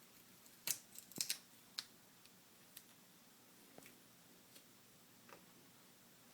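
Faint scattered clicks and ticks, the loudest bunched about a second in, from fingers picking adhesive tape off a laptop's display cable connector.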